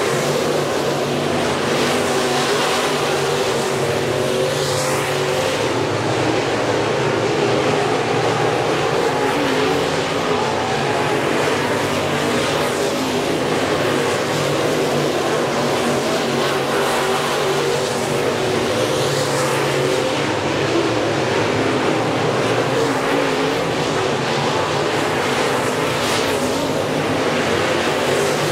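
Dirt-track race cars running laps together, engines droning steadily, with a car sweeping past every few seconds.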